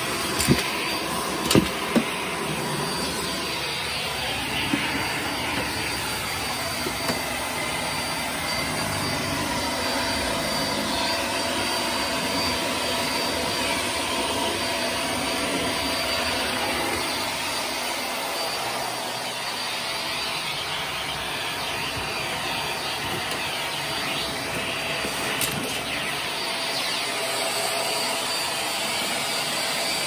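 Shark vacuum cleaner running steadily, its wand and crevice tool sucking along the carpet edge, with a high whine over the steady rush of air. A few sharp knocks sound in the first two seconds.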